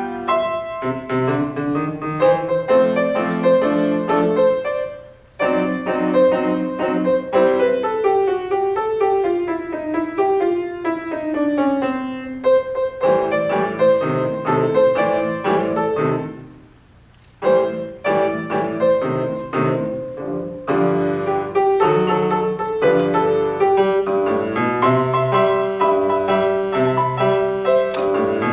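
Grand piano played solo, a continuous run of notes with a falling melodic line in the middle. The playing breaks off briefly twice, about five seconds in and again a little past halfway.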